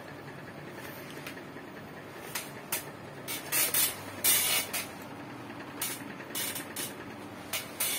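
Faint steady room tone picked up by a smartphone's built-in microphone. From about two seconds in, a run of short, loud hissy rustles, as of fingers rubbing on the phone while it is turned and moved.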